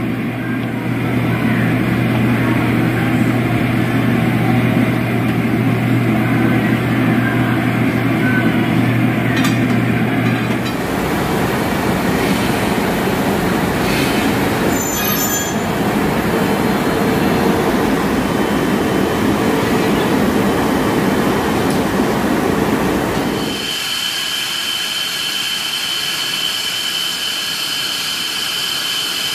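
Leaf-spring factory machinery running. First comes a steady machine hum with noise, then about eleven seconds in a heavier, even rushing noise, and for the last several seconds a thinner noise with a steady high whine.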